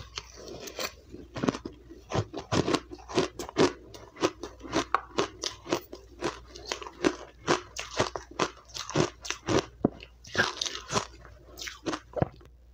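Close-miked chewing of a mouthful of crushed, refrozen ice: a steady run of sharp crunches, about two or three a second.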